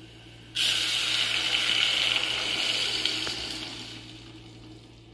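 Thick blended mixture poured from a blender jar into a metal pot on the stove: a pouring, splashing stream that starts suddenly about half a second in, runs steadily, then tapers off as the pour thins out.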